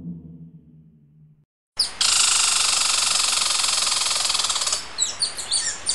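Squirrel chattering: a loud, fast, buzzy trill lasting about three seconds, then a few short high chirps. Before it, the tail of a lion's roar fades away in the first second or so.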